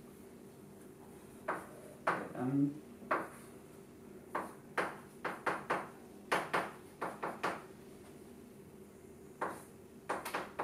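Chalk tapping and scraping on a blackboard while a formula is written, in short irregular strokes grouped in quick runs with brief pauses between them.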